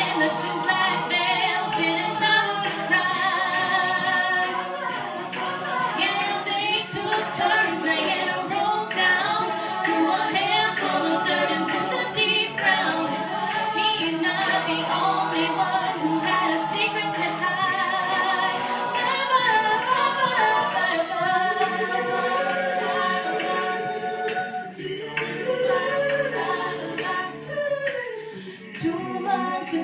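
A mixed-voice a cappella group singing a song in layered harmony, with no instruments. Near the end the sound thins to fewer voices.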